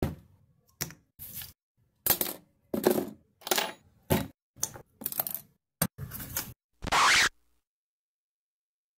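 A quick series of about a dozen short clatters and scrapes from small objects being handled and set down on a table, each cut off sharply into dead silence. The loudest, about half a second long, comes about seven seconds in.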